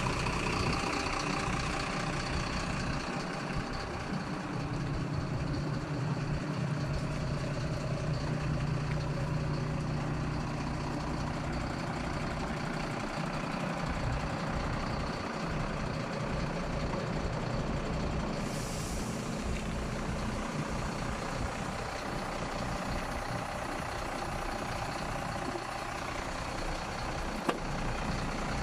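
Diesel engine of a Mercedes-Benz Atego 1224 truck idling steadily with a low hum. A short hiss comes about two-thirds of the way through, and a single click near the end.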